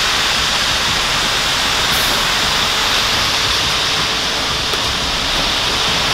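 Concrete mixer truck running with its drum turning as wet concrete pours down the chute into the form, heard as a steady rushing noise.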